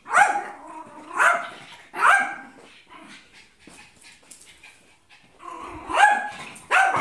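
Small dog barking: three sharp barks about a second apart, a quieter spell, then two more barks near the end, barking at a broom it is afraid of.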